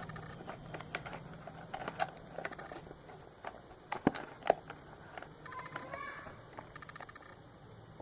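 A small retail box and its packaging being handled and opened by hand: scattered light taps, clicks and rustles, with two sharper knocks about four seconds in.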